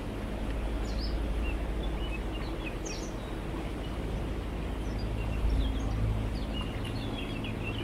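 Small birds chirping in short, scattered calls over the low, steady hum of the sailboat's motor as it runs along the canal.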